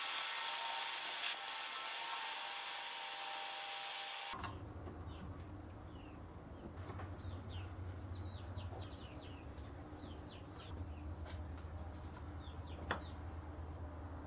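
Handheld trigger-start gas torch burning with a steady hissing flame as it heats a seized brake caliper piston bore, shut off about four seconds in. Afterwards faint bird chirps and a single click.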